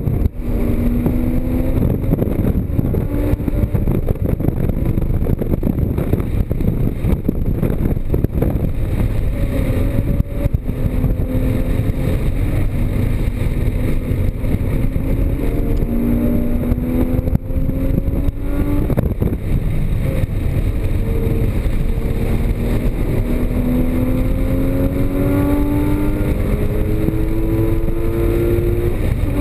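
Porsche Cayman GTS's 3.4-litre flat-six engine at hard driving on track, its revs climbing and falling back again and again through gear changes and corners, over a heavy low rumble of wind and road noise.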